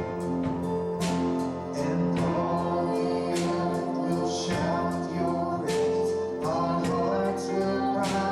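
Worship song: voices singing over instrumental accompaniment, with held notes.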